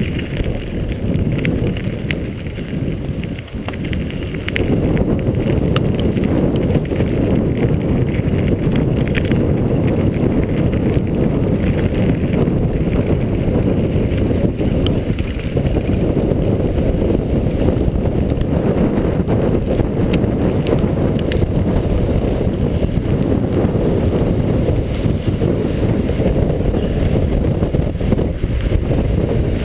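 A mountain bike descending a dirt trail at speed: a steady rumble of the tyres over the ground and wind buffeting the microphone, with small clicks and rattles from the bike, louder and steady from about four or five seconds in.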